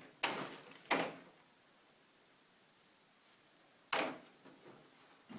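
Metal lathe accessories being handled and set down, heard as three short knocks and scrapes: two in the first second and one about four seconds in.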